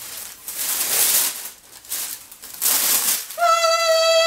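Tissue paper rustling and crinkling as it is pulled back from a box, then, about three seconds in, a woman's long, high-pitched excited squeal, held steady.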